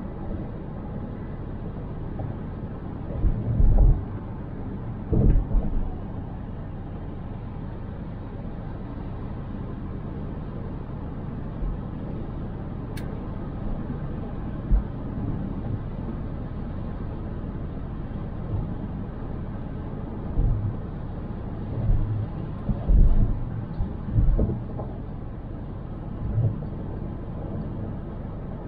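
Steady low road and engine noise of a car driving, heard from inside the cabin, with occasional low thumps, a cluster of them a few seconds in and several more in the second half.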